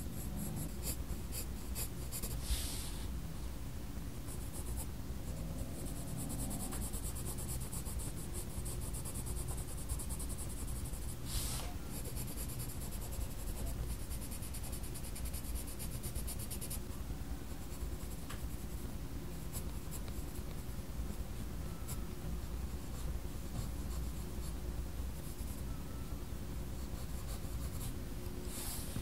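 Faber-Castell Polychromos coloured pencil scratching across sketchbook paper in quick, short strokes, with a few brief louder swishes.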